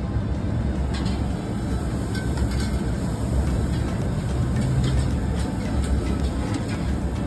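Steady low rumble of background noise, with a few faint light clicks of serving utensils.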